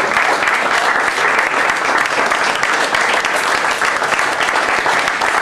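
Small audience applauding, dense and steady clapping.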